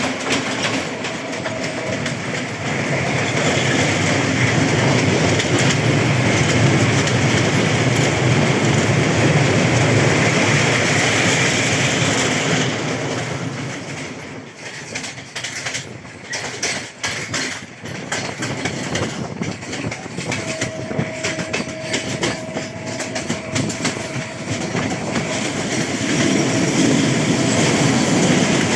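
Train running along the track, its wheels clattering over the rail joints. The sound is loud for the first half, drops and turns choppy about halfway, and a steady whine holds for a few seconds about two-thirds in before the running noise swells again near the end.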